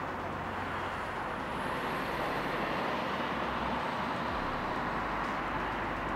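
Radio-controlled model aircraft built as the Starship Enterprise, its propeller motor buzzing steadily as it flies overhead, with a faint high whine rising in pitch in the first few seconds.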